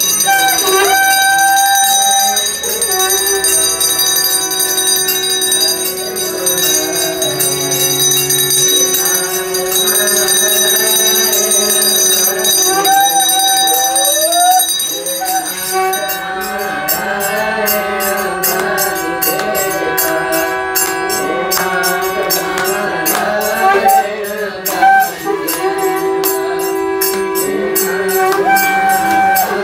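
Devotional bhajan singing accompanied by a harmonium's sustained reed tones, with a bell ringing. About halfway through, a rhythmic percussive beat joins in.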